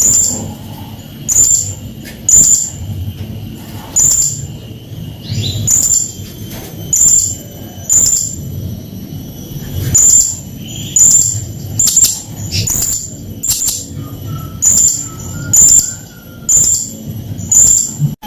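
Serindit hanging parrot calling: short, sharp, high-pitched chirps repeated about once a second.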